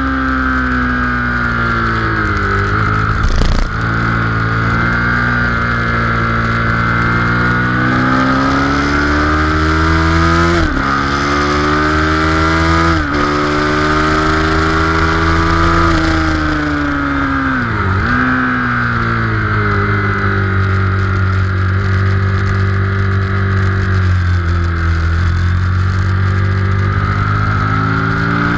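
Honda VTR1000 SP1's 999 cc V-twin engine running hard on track, heard from onboard. Its revs climb steadily and then drop sharply and climb again several times as it shifts gear, with a deeper dip and pick-up a little before the 20-second mark, and a single sharp knock a few seconds in.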